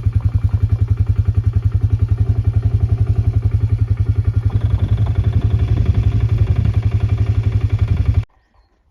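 A vehicle engine running with a steady, fast low pulse, then stopping abruptly near the end.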